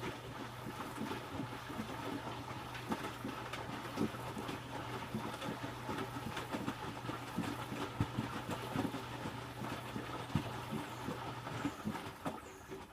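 Electrolux W455H commercial washing machine tumbling the wash: the drum motor hums steadily while the wet load and water slosh and knock irregularly inside the drum. The hum and the knocking stop near the end as the drum pauses.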